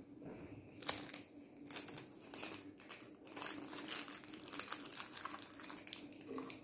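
Crinkling and rustling of something being handled in the hands, a run of short irregular crackles.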